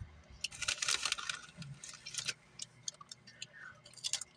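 Crinkly snack bag of PopCorners popcorn chips rustling as the chips are taken out. A dense crackle about half a second in, then scattered sharp crackles.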